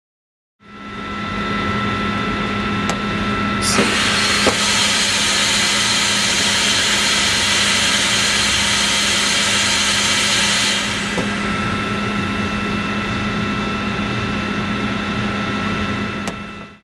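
Steady mechanical hum with a thin constant whistle. A few seconds in, a loud rush of compressed air cuts in after a click and runs for about seven seconds before dropping away: air escaping from under Hovair LA14 high-lift air bearings as the loaded gondola is floated about 15 mm off the floor.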